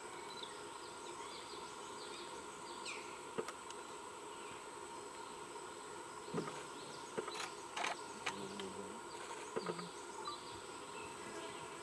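Forest ambience: a steady drone of insects with many short bird chirps over it, and a few sharp snaps and knocks in the second half.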